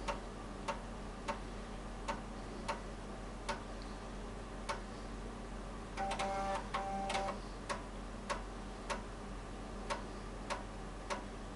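Floppy disk drive reading during a file copy: sharp, irregularly spaced clicks of the head stepping from track to track, about one every half second to second. A buzz of about a second comes roughly six seconds in.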